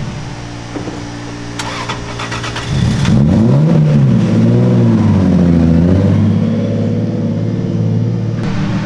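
Nissan 240SX drift car's engine running as the car rolls along, getting louder about three seconds in with a few throttle blips that send the pitch up and down, then settling into a steady note.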